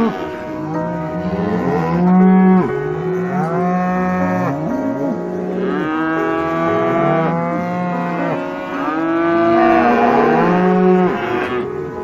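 Cattle mooing: a run of overlapping calls, each rising and then falling in pitch, coming one after another every second or two.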